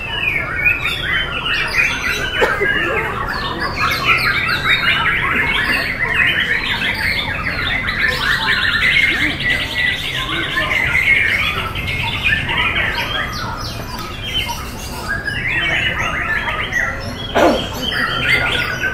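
White-rumped shamas (murai batu) singing together in a contest chorus: a dense mix of overlapping whistled phrases and chattering notes. A fast rattling trill runs from about eight to eleven seconds in, and a brief downward-sliding call sounds near the end.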